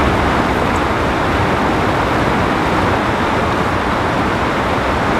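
Steady rush of river water tumbling over shallow rapids.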